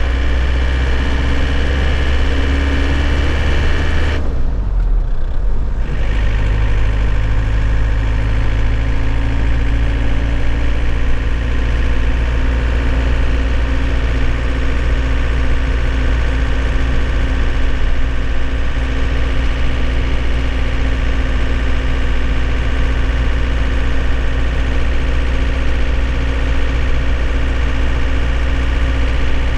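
2001 Nissan Cabstar truck's engine running steadily at idle, heard from inside the cab. About four seconds in, the higher part of the sound drops away for a couple of seconds, then the engine carries on with a slightly changed hum.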